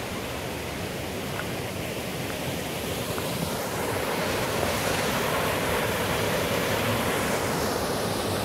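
Small waterfall and the creek below it, the water rushing steadily. The rush gets louder about three and a half seconds in.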